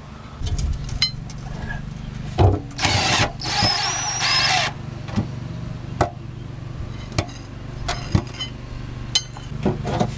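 A cordless power tool spins for about two seconds with a high whine, backing out an oil pan bolt. Several sharp metal clinks follow from the socket, bolt and pan, over a steady low hum.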